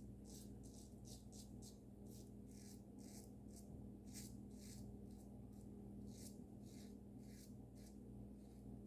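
Safety razor with a Dorco blade scraping through lathered stubble in short, faint strokes, about two a second, on an against-the-grain pass.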